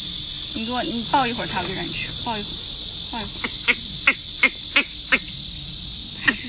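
Steady high-pitched insect chorus with young macaque calls over it: a brief run of wavering whimpers about a second in, then a string of short, sharp chirps at about three a second.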